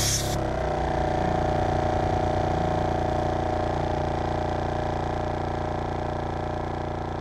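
A cheap 12-volt air compressor runs steadily with an even mechanical hum while it pumps air into a truck tyre. Air hissing from the hose stops about a quarter second in, as the chuck is pushed onto the valve stem.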